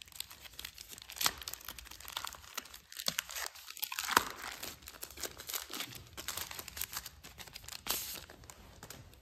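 Thin plastic packaging bag crinkling and tearing as it is pulled open by hand, a dense run of small irregular crackles.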